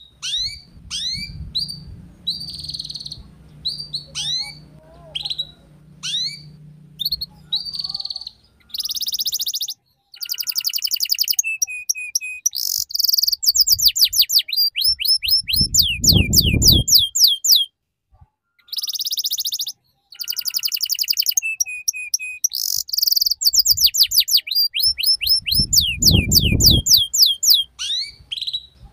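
Young domestic canary singing a fast, high-pitched song of quick down-slurred chips, dry buzzy trills and chattering ngeriwik rolls, the kind of song used as a lure to get young canaries singing. A low rumble cuts in twice, about halfway and near the end.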